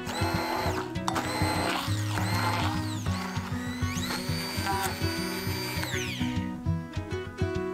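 Hand-held immersion blender motor whirring in several short bursts, its pitch rising as it speeds up and falling as it slows, then one longer run that winds down about six seconds in, as it purees drained tofu and grated yam to a smooth paste. Background music plays throughout.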